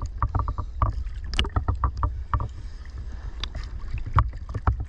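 Seawater sloshing and splashing irregularly against a camera bobbing at the water's surface, over a steady low rumble of water and wind on the microphone.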